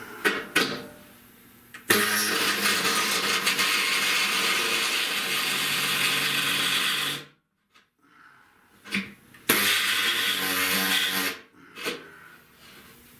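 Small cutting saw running and cutting sheet steel in two passes: about five seconds that stop suddenly, then about two seconds more. A few short clicks come just before.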